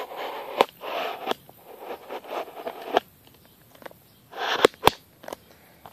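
Handling noise close to the microphone: rustling and scraping with several sharp clicks, the last two sharp clicks coming after a short quiet stretch.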